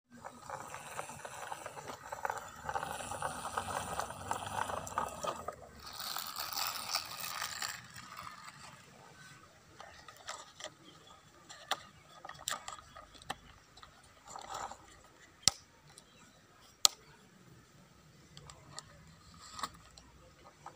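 Plastic toy trucks handled on dry dirt: a scraping, rustling noise for the first several seconds, then scattered sharp plastic clicks and taps, the two loudest about three-quarters of the way through.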